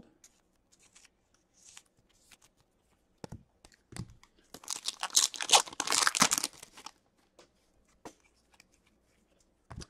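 A hockey card pack's wrapper being torn open by hand, with a dense crackling tear lasting about two seconds in the middle, after a few light handling clicks.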